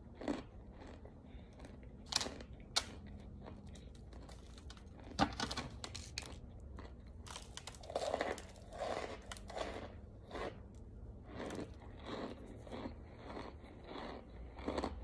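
Pressed cornstarch chunks being bitten and chewed: a few sharp single snaps, then a dense run of crunching, then regular chewing crunches about twice a second.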